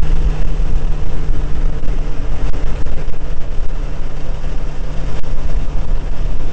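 Caterham R500's four-cylinder Ford Duratec engine running at steady revs while cruising, under heavy, gusting wind rumble on the microphone of the open cockpit.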